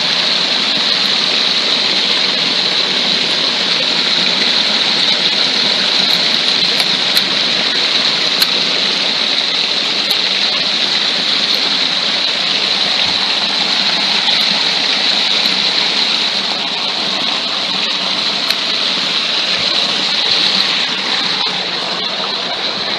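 Stream water pouring out of stone culverts and cascading over rocks, a steady rushing close to the microphone that grows slightly quieter near the end.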